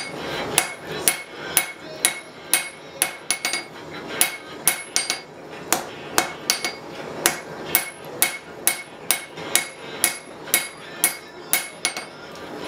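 Hand hammer striking red-hot steel on an anvil, a steady run of blows about two a second, each with a bright metallic ring from the anvil.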